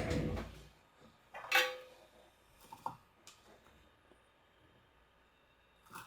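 Small tool-handling sounds at an electronics repair bench: a sharp knock at the start, a brief scraping rush about a second and a half in, then a few light clicks.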